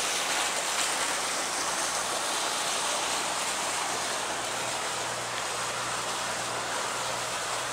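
Steady rushing of water along the hull of a moving houseboat. A faint low hum joins about halfway through.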